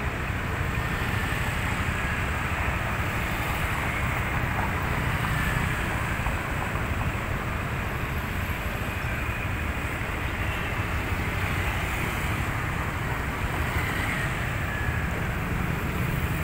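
Steady street traffic: motor scooters and cars passing through an intersection, with a low wind rumble on the microphone.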